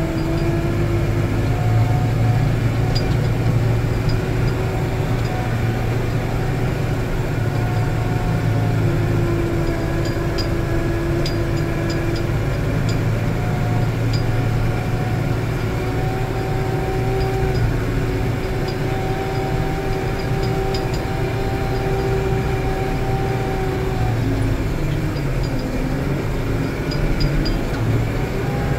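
New Holland tractor's diesel engine running steadily under load, heard from inside the cab, with a steady whine that shifts in pitch now and then.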